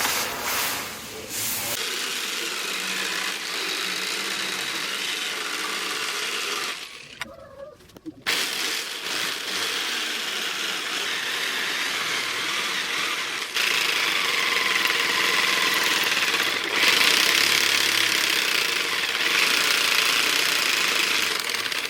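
A power tool, most likely an angle grinder, runs steadily against steel. It stops briefly about seven seconds in and then starts again.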